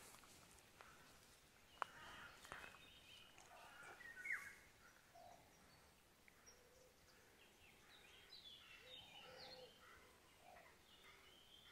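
Faint bird calls, scattered short chirps and notes, over quiet open-air background, with a single sharp click just under two seconds in.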